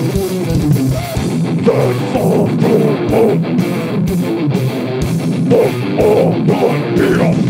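Live death metal band playing: heavily distorted electric guitar driven by fast, dense drumming.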